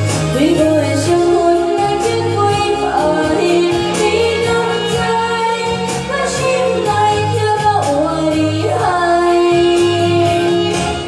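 A woman singing a slow Taiwanese Hokkien pop ballad into a karaoke microphone over the song's backing track, her voice and the accompaniment both coming through the room's speakers.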